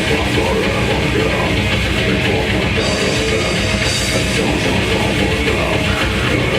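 Death metal band playing live: distorted electric guitars, bass and a fast drum kit, loud and dense, with no vocals heard.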